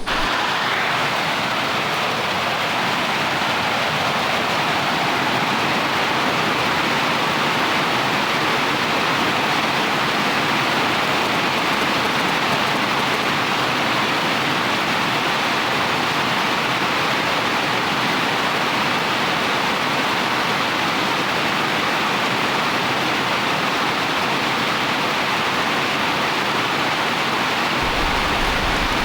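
Heavy rain falling, a loud, steady, even rush of noise.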